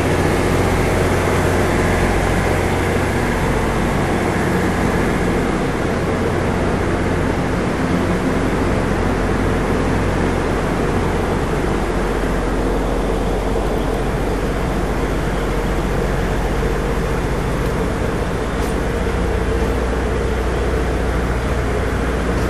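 Steady hum and rumble of a Taiwan Railways electric multiple-unit train up close, with a constant low drone.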